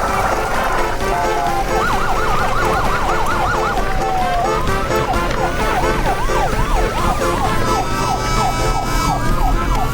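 Emergency-vehicle siren, switching between slow rising-and-falling wails and fast yelping sweeps of several a second, over background music.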